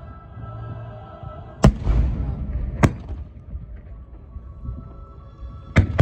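Fireworks bursting over background music: three sharp bangs, the first about a second and a half in and followed by a rumbling crackle, another a second later, and a third near the end.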